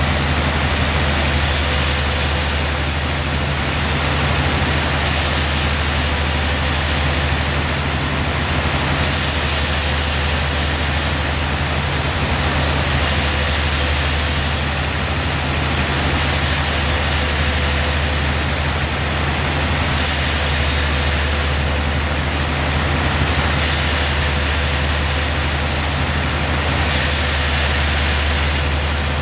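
Sawmill machinery running steadily, a constant low engine-like hum under even noise with a faint steady higher tone, with no sign of a cut starting or stopping.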